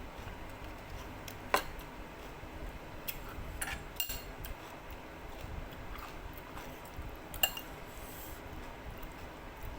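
Cutlery clinking against a bowl in a few scattered sharp clicks, the loudest about one and a half seconds in and again about seven and a half seconds in.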